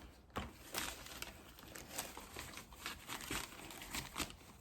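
Faint crinkling and rustling of shopping packaging being handled, with scattered light clicks and taps.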